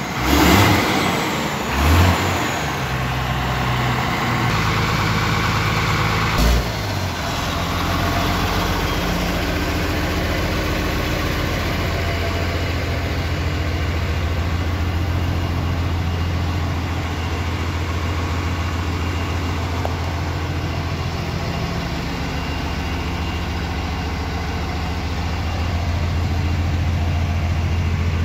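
Tata LPT 2515 cargo truck's diesel engine idling steadily with a low, even hum. A few short knocks come in the first several seconds.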